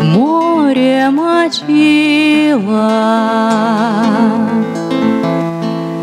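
A woman singing long, drawn-out notes with vibrato, sliding between pitches, over a nylon-string classical guitar accompaniment.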